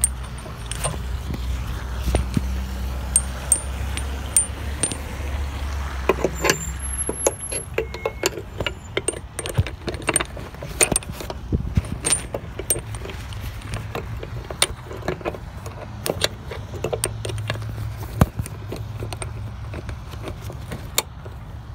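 Metal hand tools and hardware clinking and rattling in many irregular sharp clicks, over a low rumble that is strongest in the first several seconds.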